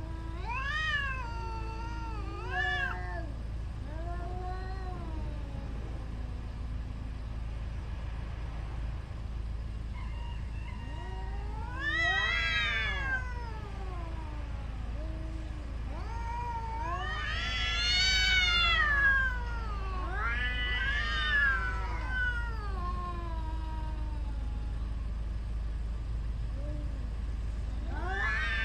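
Tomcats yowling at each other in a territorial standoff: long, wavering howls that rise and fall, several in turn with quiet gaps between, the loudest a little past the middle.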